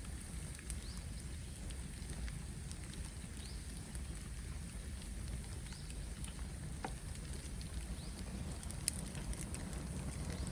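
Bamboo bonfire burning: a steady low rush of flames with scattered light crackles, and one sharper crack near the end.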